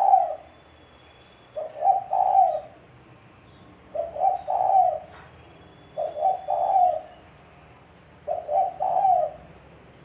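Spotted dove (tekukur) cooing: a phrase of a few short coos ending on a longer one, repeated about every two seconds, four times plus the tail of one at the start.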